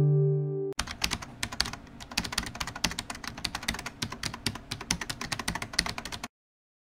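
Computer keyboard typing sound effect: a rapid, irregular run of key clicks that stops abruptly about six seconds in. It is preceded by the brief tail of a held synth intro tone that cuts off under a second in.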